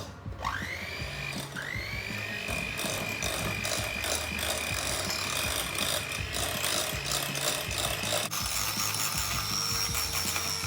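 Electric hand mixer whipping cream into a custard filling: the motor whines up in pitch twice near the start, runs steadily, then shifts to a higher speed about 8 seconds in.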